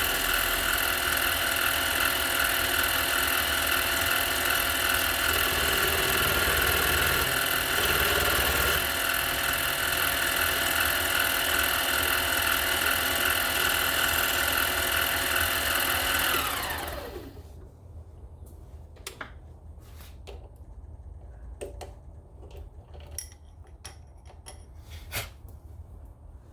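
Harbor Freight mini lathe running steadily, then switched off about 16 seconds in, its motor spinning down with a falling pitch. A few light clicks and taps follow.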